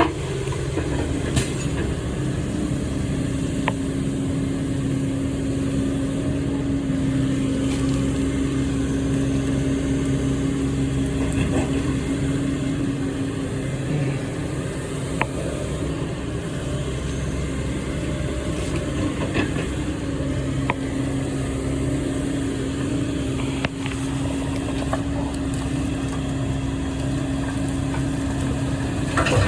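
A heavy machine's engine running steadily, with a few sharp clicks and knocks over it.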